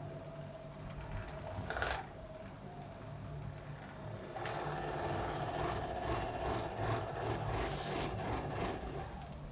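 A small motorised device hums steadily, with a short sharp noise about two seconds in, then buzzes louder from about four seconds in until near the end.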